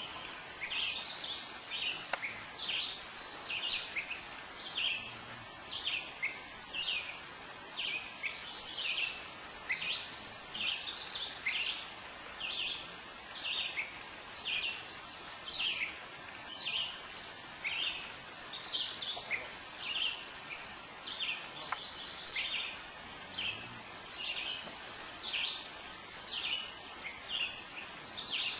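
Songbirds chirping without a break: short, high, falling notes, one or two each second, over a soft steady hiss.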